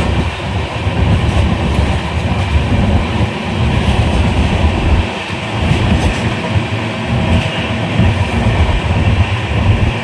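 Passenger train running on the rails: a steady, loud rumble of wheels and coaches.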